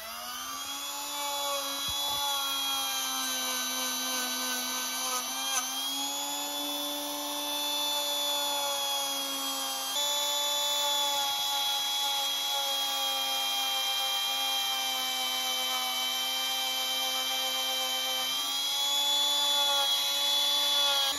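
Cordless Milwaukee rotary tool spinning a small wire-wheel brush, burnishing the contacts of old ignition breaker points. The motor whine spins up at the start, then runs steadily with a few slight dips in pitch.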